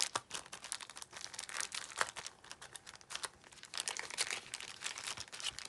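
Thin clear plastic bag crinkling in irregular crackles as a photocard is handled and slipped out of it.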